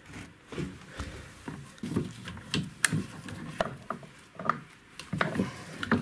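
Irregular clicks, small knocks and rubbing from a gloved hand working at the metal carburettor linkage of a Yamaha 30 outboard motor, trying to unhook a rod from it.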